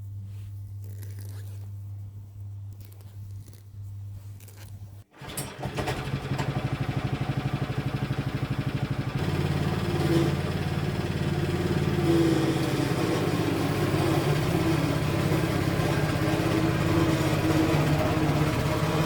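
A low steady hum cuts off about five seconds in, and then the Hecht 5676 lawn scarifier's engine is running loud and steady with a fast pulsing beat. It gets louder again about four seconds later, as the machine works through the lawn.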